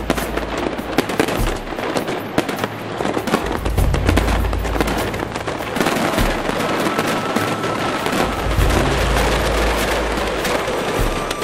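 Fireworks display: dense crackling and popping bursts with repeated bangs, with music playing underneath.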